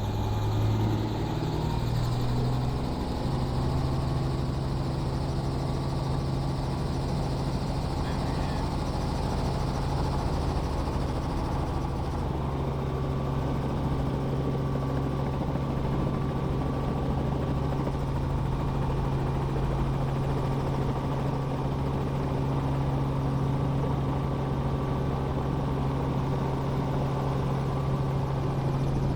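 Helicopter running: a steady low hum whose pitch rises over the first few seconds and then holds.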